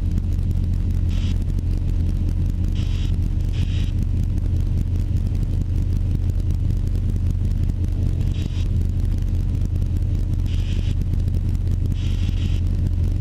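Light aircraft's piston engine and propeller running with a steady drone during the climb, heard from inside the cockpit.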